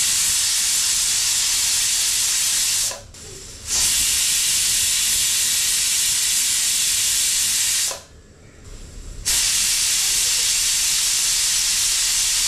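Stovetop pressure cooker at full pressure, steam hissing loudly out past the weight on its lid. It comes in three long bursts, with short breaks about three seconds in and about eight seconds in.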